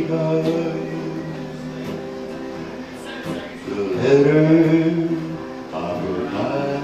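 Live electric and acoustic guitar playing a slow song together, with a man singing. The music swells louder about four seconds in, then eases back.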